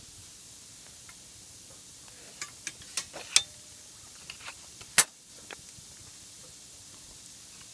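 Wood fire in a fire stand crackling: a low hiss with a scatter of sharp, irregular pops and snaps, two of them much louder, bunched in the middle stretch.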